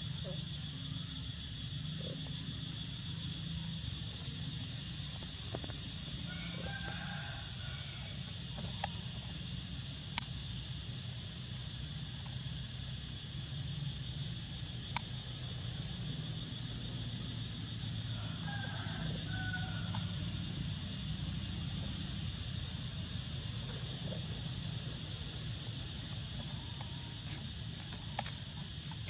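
A rooster crowing twice, about seven seconds in and again near twenty seconds, over a steady high hiss.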